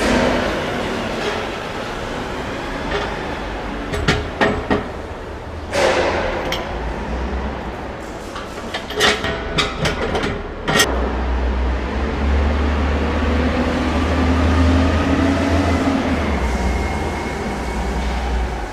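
Loading-dock machinery noise: a steady mechanical hum with clusters of sharp metallic knocks and clanks in the first half. A low engine drone swells in the second half, typical of forklifts working near the trailer.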